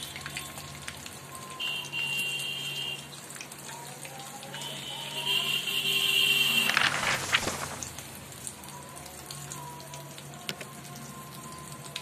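Whole cardamom, cinnamon and cloves frying in hot mustard oil in a kadai, a light crackling sizzle over soft background music. A loud whoosh comes about seven seconds in.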